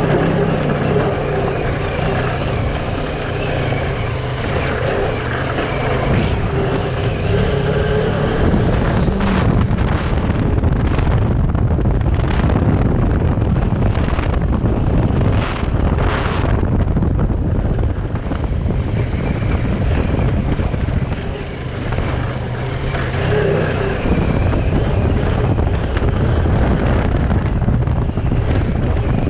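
Kawasaki Versys 650 parallel-twin engine running under way on a gravel trail, with heavy wind noise on the microphone. The engine note is clear at first and again later on, and is mostly buried under wind in the middle.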